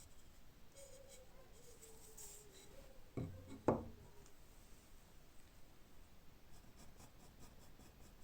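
Faint scratching on a wooden handle blank for the hammer, with two knocks about three seconds in, half a second apart, the second louder.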